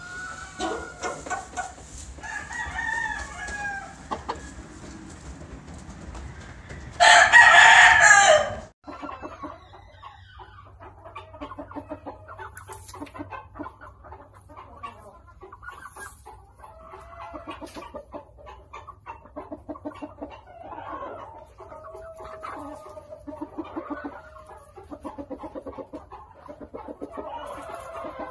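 Kelso gamefowl chickens clucking, with one loud rooster crow about seven seconds in. After it comes a run of short, rapid clucks.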